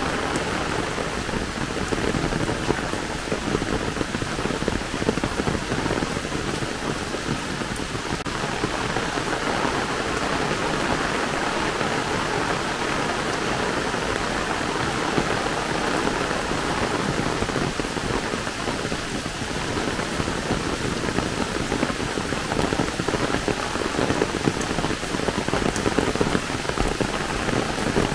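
Heavy rain falling steadily, a dense, even hiss of drops on leaves and the wet ground.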